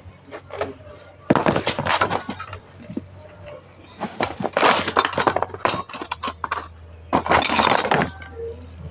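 Hard parts clinking and rattling as they are handled, in three bursts of clatter, over a faint steady low hum.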